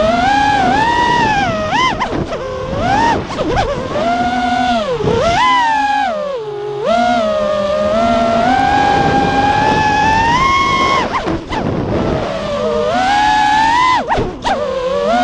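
FPV freestyle quadcopter's brushless motors and propellers whining, heard from the quad's onboard camera, the pitch rising and falling with the throttle. It drops sharply as the throttle is cut about six seconds in, and twice more later.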